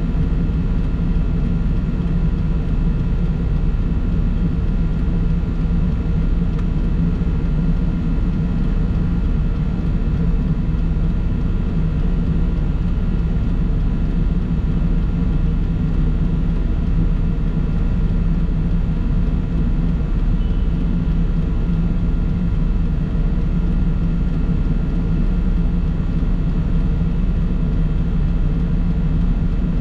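Steady drone of a vehicle driving along a road: engine and road noise, even throughout, with no horn or other sudden sound standing out.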